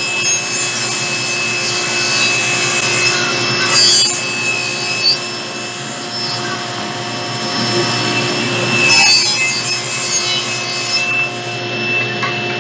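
SawStop table saw running with a steady whine as its blade rips through plywood. The cutting noise is heaviest in the first few seconds and again about two-thirds of the way through.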